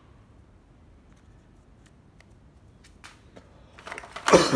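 A used plastic cordless drill being handled: scattered soft clicks and taps, then a louder clatter about four seconds in, as it is knocked or set down on a hard surface.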